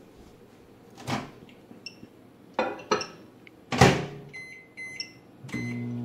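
Countertop microwave oven being handled and started: a few knocks, the loudest a door slam shut, then a handful of short keypad beeps. About half a second before the end the oven starts running with a steady low hum.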